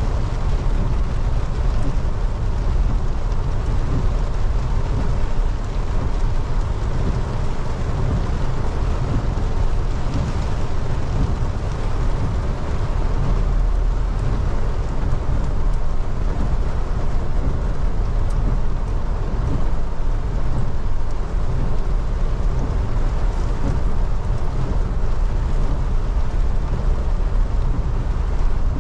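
Mahindra Bolero's diesel engine and tyres running slowly on a wet, flooded road, a steady low rumble mixed with the even hiss of heavy rain, heard from inside the cabin.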